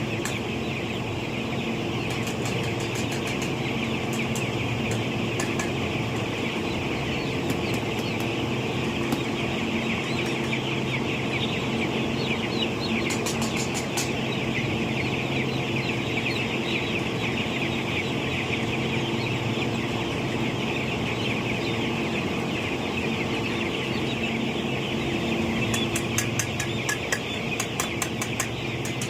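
A flock of broiler chickens chirping and clucking continuously over a steady low hum. Runs of rapid clicks come near the middle and again near the end.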